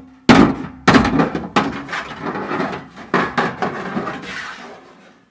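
Car-crash foley made with real car body parts: four heavy metal crashes and bangs in quick succession, each ringing away before the next, fading out near the end.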